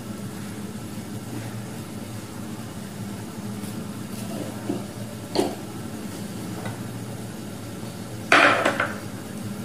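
Steady low hum of a covered pan of chicken curry simmering on a gas burner, with a few light clinks around the middle and a loud clatter of kitchen pots or dishes near the end.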